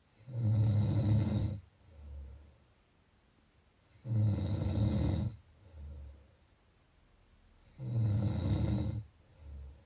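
A person snoring: three loud snores about four seconds apart, each followed by a softer, low breath.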